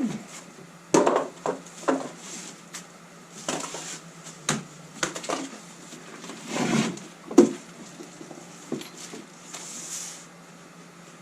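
A heavy bench vise and its cardboard packing being handled, with about eight irregular knocks and scrapes in the first eight seconds, then quieter rustling.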